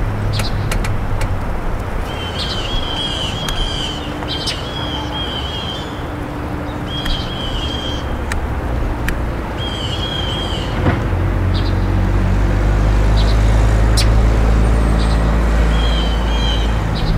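Outdoor winter morning ambience: a bird gives short, repeated chattering calls several times over a steady low rumble of road traffic, which swells in the second half as a vehicle passes. Scattered sharp ticks are heard throughout.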